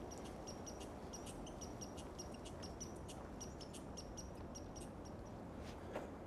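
A small bird chirping a rapid run of short, high notes for about five seconds over a steady hiss of outdoor ambience, with a single click near the end.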